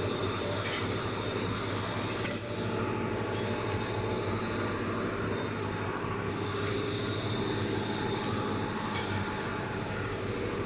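Belt-driven, air-cooled piston air compressors running on a factory test bench: a steady hum and mechanical clatter, with a brief knock about two seconds in.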